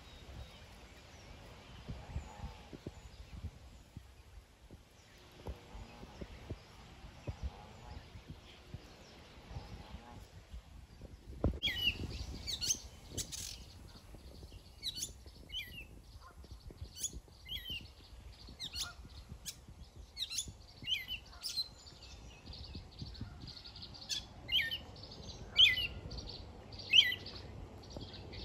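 Gray catbird singing: an irregular series of short, varied squeaky notes, many sliding down in pitch, starting about twelve seconds in. Before that there is only faint outdoor background noise.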